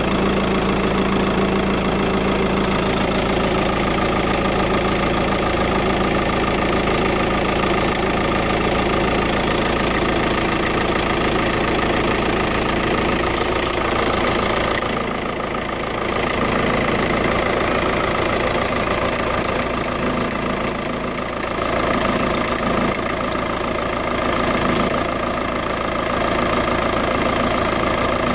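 TDI turbo-diesel engine idling steadily, with the ticking sound that the owner is recording to have it identified.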